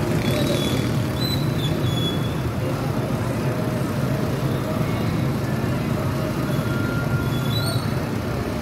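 Steady low rumble of street traffic and engine noise.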